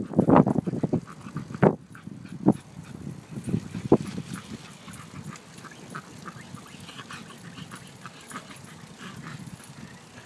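Small terrier running beside a bicycle, giving a few short dog sounds in the first four seconds, then only faint scattered ticks.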